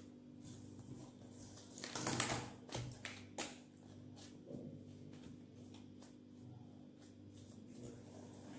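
A deck of playing cards being shuffled by hand in an overhand shuffle: soft scattered flicks and taps of cards, with a louder rush of cards about two seconds in.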